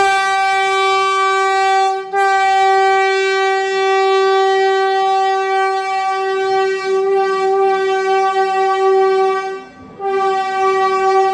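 Vande Bharat Express train horn sounding a steady, single-pitched blast. It breaks off briefly after about two seconds, sounds again for about seven and a half seconds, then stops and starts once more near the end.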